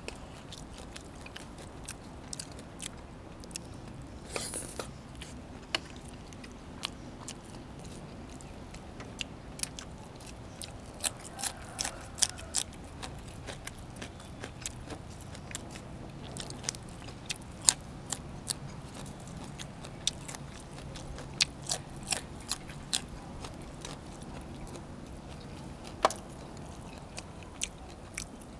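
Close-up mouth sounds of a person chewing and biting into pork ribs and raw vegetables, with irregular crisp crunches and wet clicks scattered throughout.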